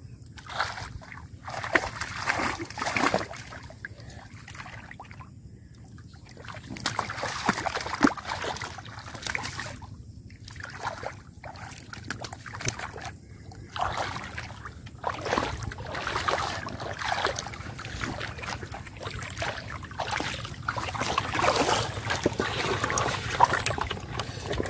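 Shallow muddy water splashing and sloshing in irregular bursts as catfish are grabbed by hand and thrash.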